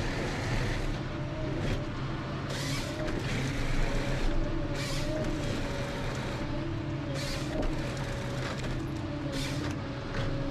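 Ponsse Scorpion King harvester with an H7 head at work: engine and hydraulics running steadily with a steady whine, and a short hissing surge about every two to two and a half seconds.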